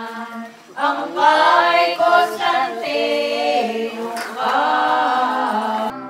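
A group of voices singing unaccompanied, holding long notes, breaking off abruptly near the end.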